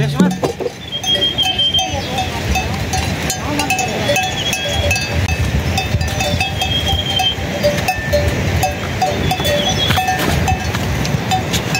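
Many small bells on a flock of livestock clinking and ringing irregularly as the animals move, over a steady low noise.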